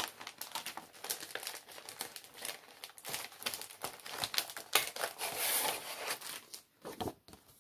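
Packaging crinkling as it is handled and opened, a dense run of crackles that dies away near the end.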